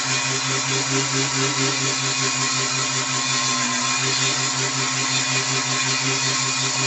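Mini wood lathe, powered by a small 12–24 V motor, running steadily with a hand gouge cutting into a spinning wooden blank: a constant motor hum with a fast pulsing under it and a dense scraping hiss from the cut.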